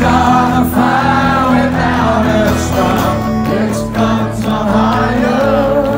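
A male singer singing solo to his own acoustic guitar. The sound is live through a large concert PA, heard from within the crowd.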